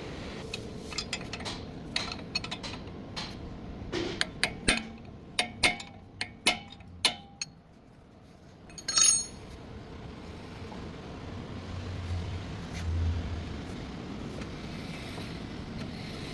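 Metal tools and parts clinking and knocking: a quick run of light metallic taps over several seconds, then one louder ringing clank.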